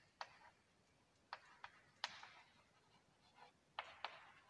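Chalk writing on a blackboard: a series of faint, irregular taps and short scratches as letters are formed.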